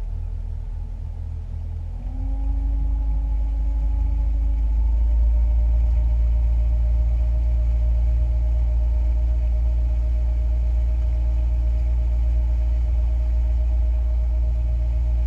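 Boat's outboard motor speeding up about two seconds in, then running steadily at a low pitch as the boat gets under way.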